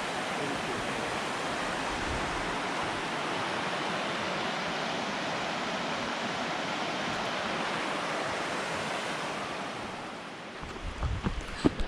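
A river rushing, a steady wash of flowing water that eases slightly near the end. A few low thumps and clicks come in the last second or so.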